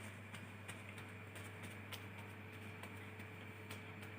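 Faint, scattered light ticks and crinkles of a disposable paper tissue as wet hands are dried, over a steady low electrical hum.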